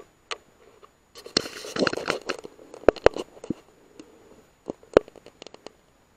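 Scattered sharp clicks and short rustles of handling noise on a rifle-mounted night-vision scope recorder. The loudest are single clicks about three seconds in, again just after, and near five seconds.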